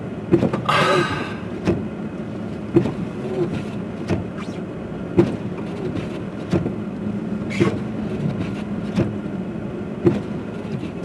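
Car moving slowly through deep snow, heard from inside the cabin: a steady low engine and road drone with short soft knocks about once a second.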